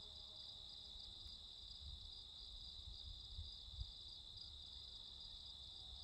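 Insects chirping steadily in the surrounding grass and fields, a faint continuous high-pitched trill with a light regular pulse.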